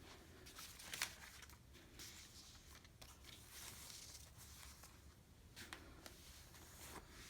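Faint rustling and crinkling of packaging being handled, with one sharp click about a second in.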